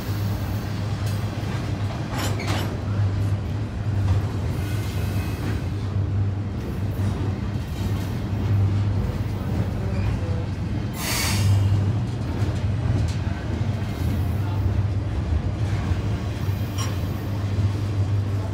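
Double-stacked container cars of an intermodal freight train rolling past close by: a steady rumble of wheels on rail. A few brief screeching bursts cut through, the strongest about eleven seconds in.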